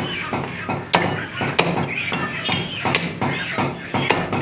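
Four sharp knocks of a butcher's knife blade striking a wooden chopping block as mutton is cut by hand, at uneven intervals about a second apart.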